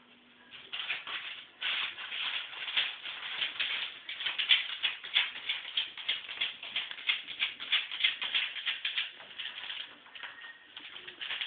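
A dog digging with its paws in newspaper lining a plastic tray, burying a treat: rapid crinkling and scratching of paper in quick strokes, starting about a second in.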